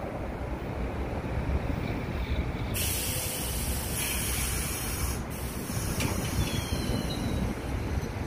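R62A subway train's air brakes releasing with a loud hiss about three seconds in, lasting a couple of seconds, as the stopped train gets ready to pull out; a low rumble runs underneath.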